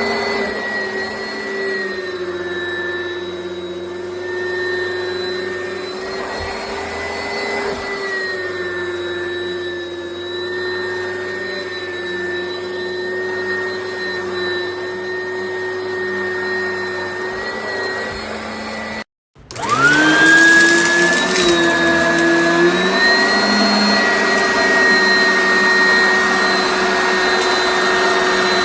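Oreck Commercial upright vacuum running with a steady motor whine. About two-thirds of the way through, the sound cuts out for a moment; then the motor spins up again with a quick rising whine and runs on, louder.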